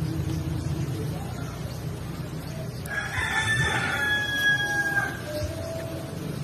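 Rooster crowing once, about three seconds in: one call of about two seconds that drops lower at the end, over a steady low hum.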